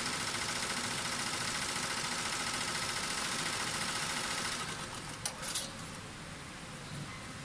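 Butterfly multi-needle embroidery machine stitching at speed: a fast, even mechanical clatter from the needle bar, which stops about four and a half seconds in. A couple of sharp clicks follow.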